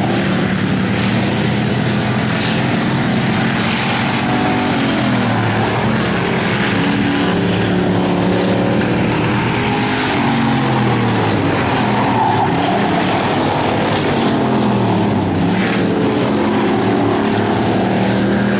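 Bomber-class stock cars racing, several engines running together with their pitch rising and falling as they accelerate and lift through the turns.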